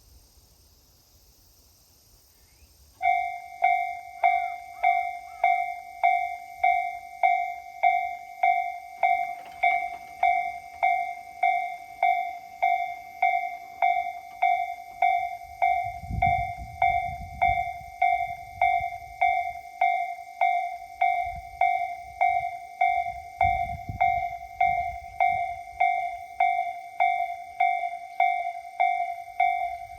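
Japanese railway level-crossing warning bell starting up about three seconds in and then ringing on at an even pace of about one and a half dings a second, each ding a clear tone that fades before the next. The bell signals that a train is approaching. Two brief low rumbles come in under it partway through.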